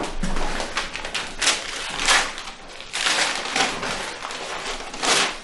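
Footsteps and shuffling of several people walking into a room on a hard floor, with rustling and a few light knocks.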